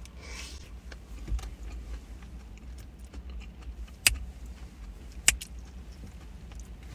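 Low steady rumble of a car cabin, with a brief rustle near the start as a forkful of food is taken, and two sharp clicks about four and five seconds in.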